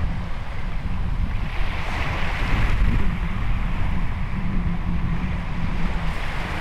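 Small waves breaking and washing up a shingle beach, swelling about two seconds in and again near the end, with wind buffeting the microphone as a steady low rumble.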